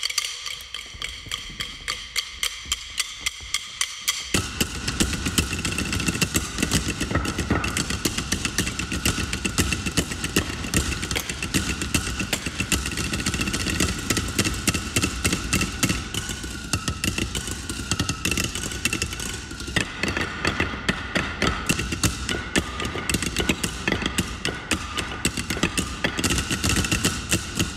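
Drumsticks striking the wooden seats of bar stools, many players at once in a rhythmic percussion ensemble piece: a steady run of sharp wooden clicks, which about four seconds in fills out into a denser, louder clatter.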